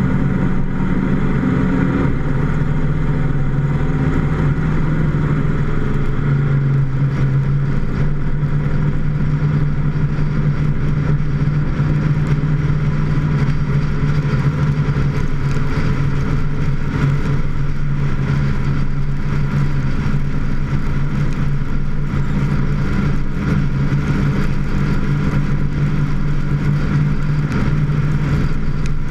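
Engine of a vehicle driving at steady road speed, heard from a camera on its hood: a constant low hum that rises a little about six seconds in, under a rushing hiss of wind and tyres on wet pavement.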